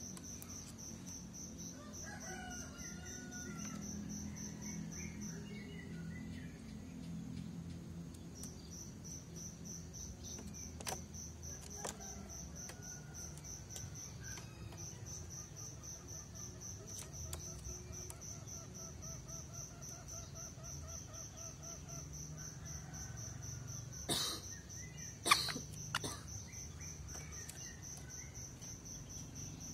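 A caged green junglefowl rooster gives two short, sharp crows in quick succession about five seconds before the end, the decoy call used to lure wild junglefowl. Behind it, insects chirp in a steady, fast pulse throughout.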